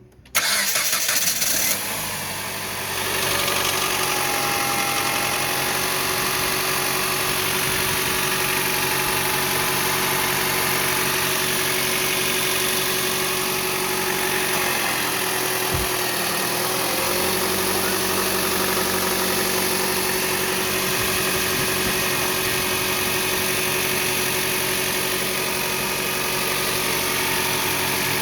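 Mitsubishi 4B12 2.4-litre four-cylinder engine starting from cold and then idling steadily. In the first seconds after it catches there is an extraneous knock, which the owner says comes only on a cold start after 5–6 hours standing and dies away after about five seconds.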